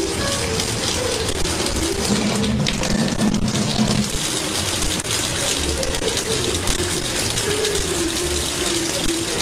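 Kitchen tap running in a steady thin stream, splashing into a sink basin.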